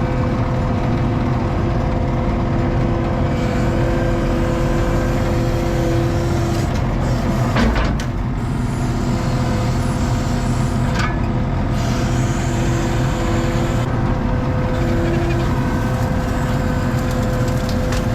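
ASV RT-40 compact track loader's diesel engine running steadily under load, with a higher steady tone that drops out and returns. A single clunk comes about eight seconds in.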